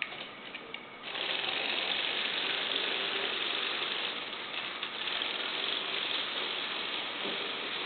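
Remote-controlled Lego Technic robot's electric motors and plastic gear train whirring steadily as the machine is driven. The whir starts suddenly about a second in.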